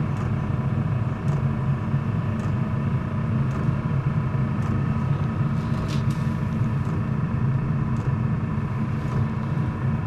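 A Chinese all-in-one diesel heater running at its lowest fuel and fan setting, with no fuel damper fitted. It makes a steady low rumble, and its fuel pump ticks about once a second at the 0.9 Hz pulse setting.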